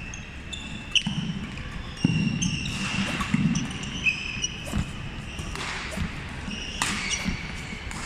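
Badminton rally: rackets strike the shuttlecock in several sharp hits a second or two apart, with sneakers squeaking on the hardwood court floor.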